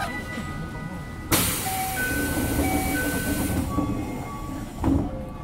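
Toei 5300 series subway train: a sudden loud rush of air lasts about two seconds, with a two-note chime sounding twice over it, then a single thud near the end.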